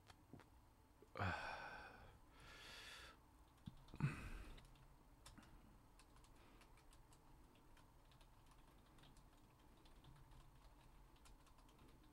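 Faint clicking of a computer keyboard being typed on. In the first four seconds there are two louder short sounds, one of them like a sigh.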